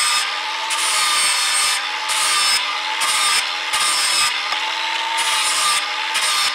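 A cordless angle grinder with a flap disc grinds the steel cutting edge of a lawn mower blade to sharpen it and take out the nicks. The motor whines steadily under the grinding hiss, and the hiss breaks off briefly about once a second, pass after pass.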